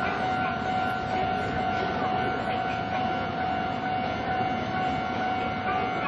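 Japanese level-crossing warning bell ringing steadily, one unbroken high tone with overtones, over a constant low rumble of rail and street noise.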